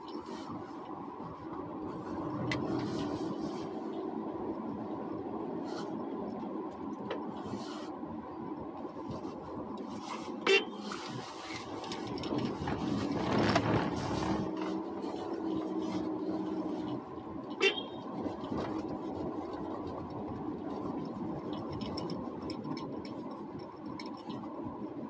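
Car cabin noise while driving slowly over snow-covered road: a steady engine and tyre hum that swells louder around the middle, with two sharp knocks, one about ten seconds in and another a few seconds later.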